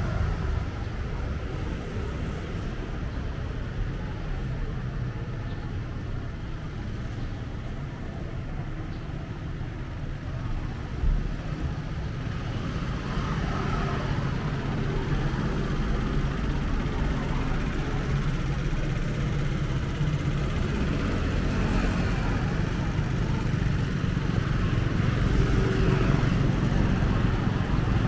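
City street traffic: cars and other motor vehicles running past in a steady rumble that grows louder near the end, with a brief knock about eleven seconds in.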